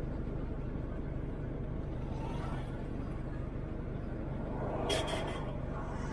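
Steady engine and road rumble heard from inside a moving minibus taxi, with a short clatter of sharp clicks about five seconds in.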